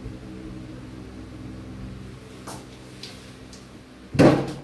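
A steady low hum with a few faint clicks, then a single loud thump near the end, like something knocked or bumped in a small room.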